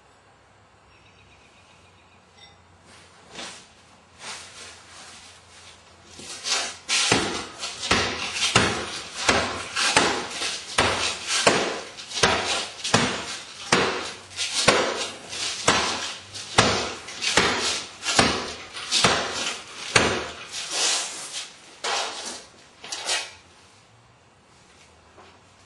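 A long series of hard strikes or knocks: a few scattered, fainter ones at first, then a steady run of loud blows at about two a second that stops a couple of seconds before the end.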